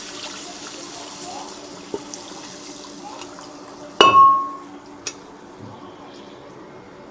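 Hot water pouring and splashing into a pan of mutton curry, fading away over the first few seconds. About four seconds in comes a sharp clink of utensils that rings briefly, the loudest sound, and a smaller click follows about a second later.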